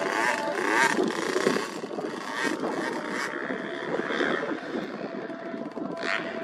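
Motocross dirt bike engines running, one revving up and down about a second in over a steady engine drone.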